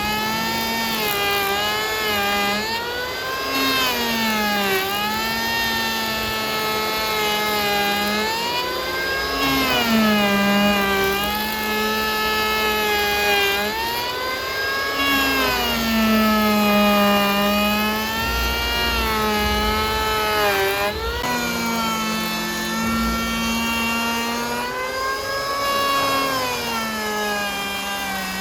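Engine-driven wood saw running steadily, its engine pitch sagging and then climbing back about every five to six seconds as the saw loads up and frees again.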